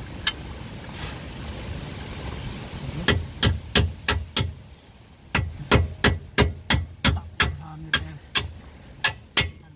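Sharp metal-on-metal taps from fitting the front lower wishbone (control arm) to a 2012 Nissan Juke: a run of five, then a short pause and a run of about twelve, roughly three a second.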